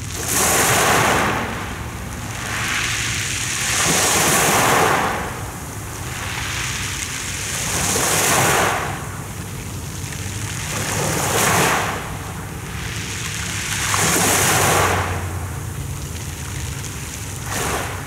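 Small sea waves breaking and washing over a pebble beach: a hissing surge about every three to four seconds, over a steady low rumble.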